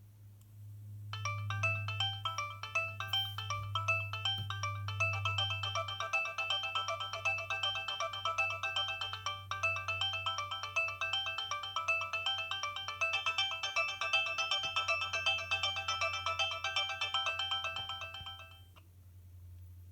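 A Nokia 6060 mobile phone plays a ringtone through its small speaker: a fast electronic melody of short, clipped notes sounding several at a time. It starts about a second in and stops shortly before the end, over a steady low hum.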